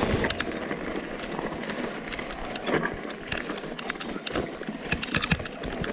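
Mountain bike riding over rough, stony track: irregular clicks and rattles over a steady rush of noise.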